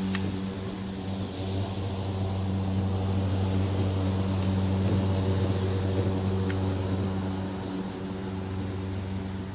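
Lawn mower engine running steadily, a little louder in the middle and easing off toward the end.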